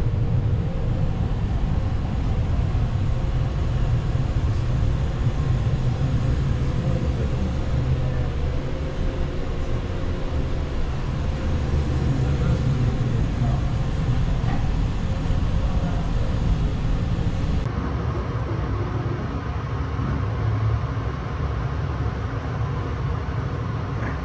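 Running noise heard inside a moving 285 series Sunrise Izumo sleeper train: a steady low rumble with a faint hiss above it.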